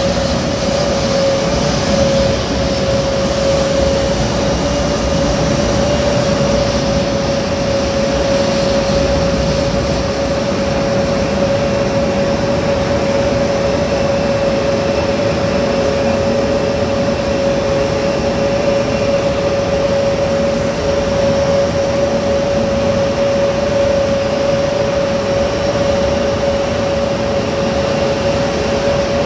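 Jet airliner engines running at taxi idle: a steady rushing noise with a constant whine held on one pitch.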